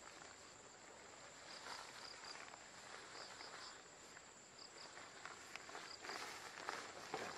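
Faint rustling of a rain poncho's fabric as it is held up and shifted, loudest near the end, over a steady high insect drone and short repeated insect chirps.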